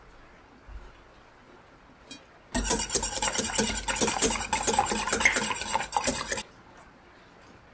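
Stainless-steel balloon whisk beating raw eggs in a bowl. Its wires clatter rapidly against the bowl for about four seconds, starting about two and a half seconds in and stopping abruptly.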